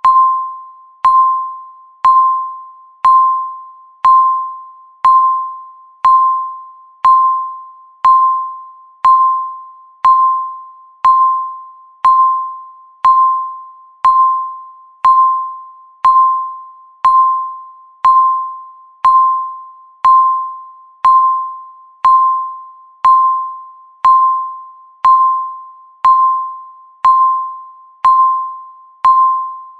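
Countdown timer beeping once a second: a single mid-pitched electronic tone, each beep starting sharply and fading out like a chime before the next.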